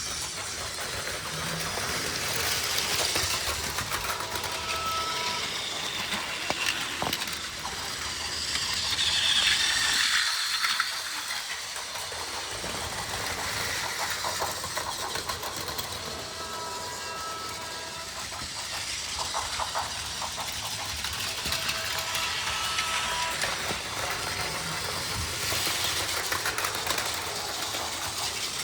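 Battery-powered Plarail toy train running on plastic track: a steady motor whir with light clicking from the wheels over the track joints.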